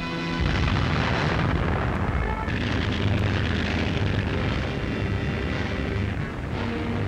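Battle sound effects of a wartime newsreel soundtrack: a continuous rumble of explosions and artillery fire, a deep low rumble setting in just after the start.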